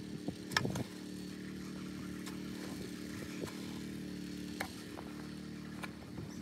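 An engine runs steadily in the background with a droning hum, under a few scrapes and knocks of a metal rake dragging soil over planted rows, the strongest about half a second in.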